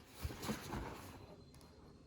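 Soft handling noises: two or three light knocks and rustles in the first second, then fading to a faint hiss.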